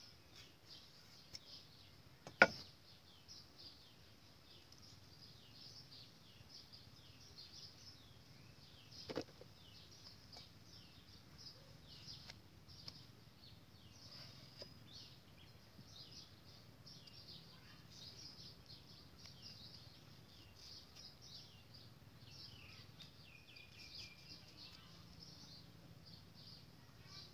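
Small birds chirping continuously in the background, faint and dense. A sharp knock about two seconds in is the loudest sound, with a softer knock around nine seconds.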